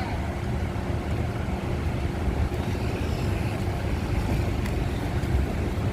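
Large bus's diesel engine running steadily at idle, a continuous low rumble.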